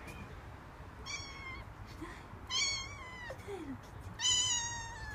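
Cat meowing three times, high-pitched calls that each slide down at the end, the last one the loudest and longest: a cat shut indoors begging to be let out.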